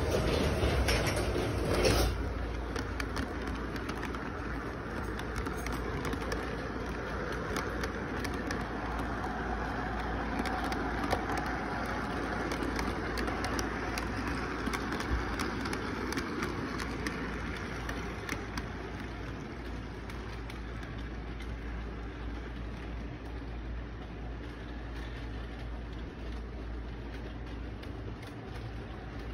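Model intermodal train running along its track: a steady motor rumble with scattered clicks from the wheels, slowly fading toward the end.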